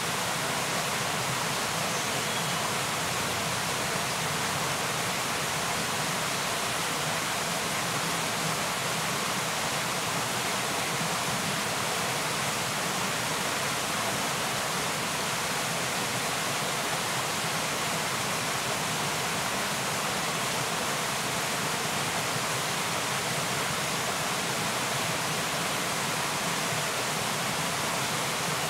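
Steady, even rushing noise that does not change, with nothing else standing out.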